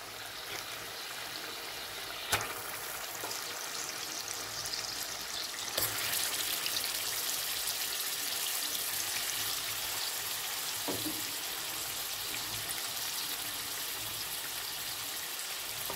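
Raw chicken pieces sizzling in hot oil and fried masala in a cooking pot: a steady crackling hiss that grows louder about six seconds in as more pieces go in. Two sharp knocks, near two seconds and near six seconds, stand out above it.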